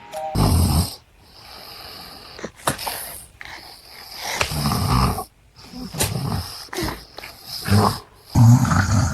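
A man snoring loudly in irregular deep snores, one about half a second in, a longer one around four to five seconds, and two close together near the end, with quieter breathing and a few short clicks between.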